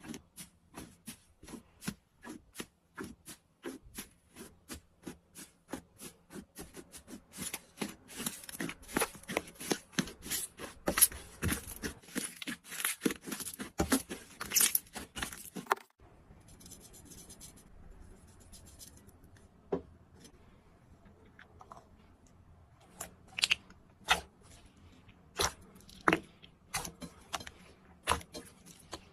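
Hands squeezing and poking slime: sticky clicks and pops at about two a second, building into denser crackling. The crackling cuts off suddenly about halfway through, followed by a quieter stretch with scattered pops near the end.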